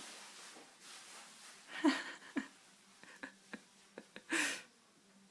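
A sleeping Labrador puppy making a few short, irregular breathy snorts and faint squeaks while dreaming, with a louder breathy snort near the end.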